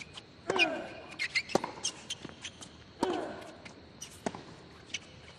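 Tennis rally on a hard court: sharp racket strikes and ball bounces every half second to second and a half. A player's grunt, falling in pitch, comes with the shots about half a second in and again about three seconds in.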